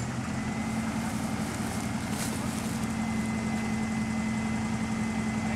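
A 4x4 off-road vehicle's engine idling with a steady, unchanging hum.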